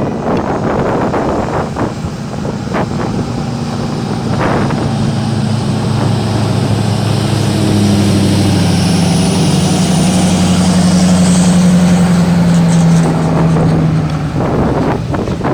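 A vehicle running with a steady low engine hum, with scattered knocks and rattles over it in the first few seconds.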